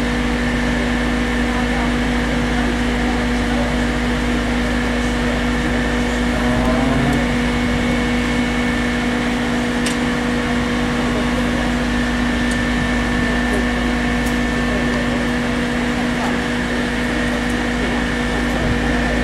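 Fire-service vehicle engine running steadily, a constant mechanical drone with an even hum, as it powers the aerial platform at a chimney fire.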